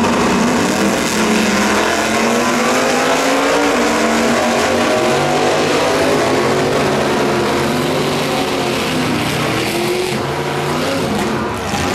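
Two gasser drag cars launching side by side and running hard down the strip at full throttle. The engine notes climb, drop back at each gear change, then climb again as the cars pull away.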